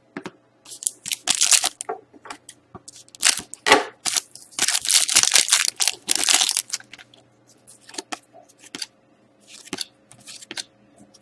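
Foil wrapper of a 2011-12 Titanium hockey card pack being torn and crinkled, in a series of short rips and rustles with a longer, louder one from about four and a half seconds in.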